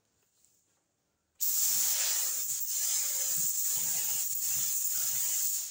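Gravity-feed spray gun with a 1.7 mm tip spraying filler primer: a steady hiss of compressed air and atomised primer that starts abruptly about a second and a half in, runs about four seconds and eases off near the end. It is laying a light first coat.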